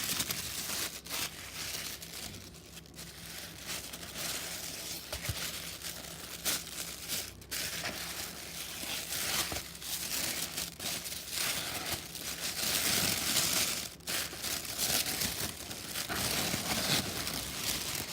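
Packaging being handled and pulled open: continuous crinkling and rustling with small crackles and tearing, loudest a little past the middle.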